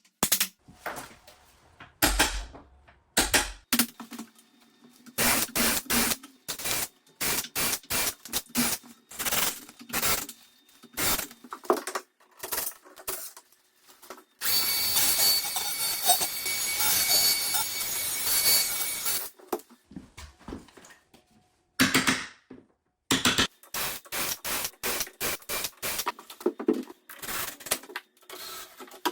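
Woodworking on a door: a long run of sharp knocks and taps, with a power tool running for about five seconds midway.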